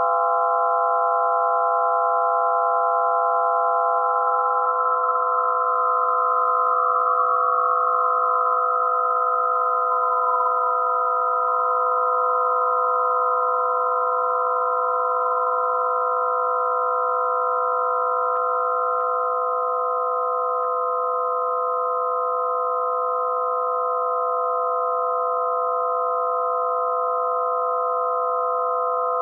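Electronic drone of several pure, steady tones layered together, synthesised in Max/MSP. From about four to ten seconds in, a couple of the tones slide slowly down in pitch, then the chord holds steady.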